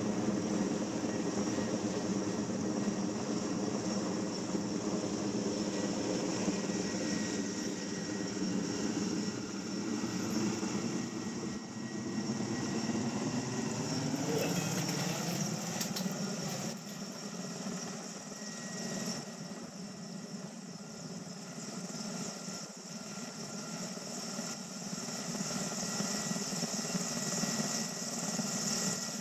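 Erickson S-64 Aircrane heavy-lift helicopter running, its rotor and twin turbine engines making a steady, pitched drone. About halfway the pitch bends and the sound drops somewhat, then grows louder again near the end.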